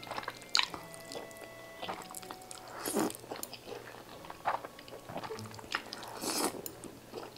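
A person slurping up mouthfuls of carbonara Buldak instant noodles and chewing them, with a few loud slurps, the strongest about three seconds in and around six seconds in, amid small wet mouth clicks.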